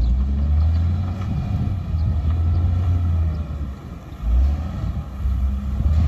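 Wind buffeting the microphone in uneven gusts, the loudest sound, over the faint steady running of a Volvo wheel loader's diesel engine as it drives.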